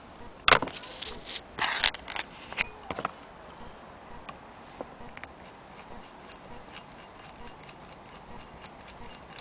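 A few loud clunks and rattles of metal being handled, then from about five seconds in the cast-iron hand-crank wheel of a Willcox & Gibbs sewing machine turning on its rod, giving a light, even ticking about three times a second.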